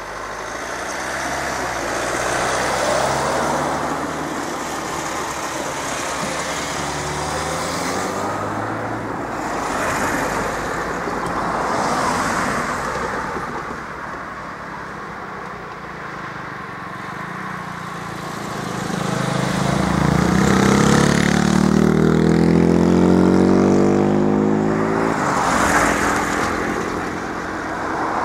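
Cars driving over a road–rail level crossing and passing close by one after another, each swelling and fading. About two-thirds of the way in, one engine runs louder with its pitch rising as it accelerates away.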